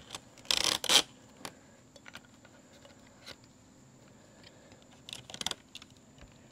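Rattling and clicking of a strap and its buckle being fastened around the van's roof rail to secure the top of an aluminium telescoping ladder: a short loud rattle about half a second in, a few light clicks, then a quick run of clicks around five seconds in.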